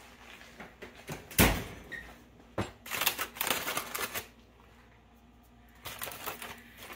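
Aluminium foil crinkling as it is pulled open over a disposable aluminium roasting pan, in two bouts of crackling. A single knock about a second and a half in is the loudest sound.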